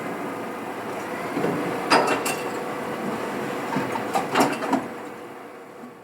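Rail vehicle running with a steady rumble and hum, broken by sharp metallic clanks and squeals, two about two seconds in and three more between four and five seconds, then slowly fading.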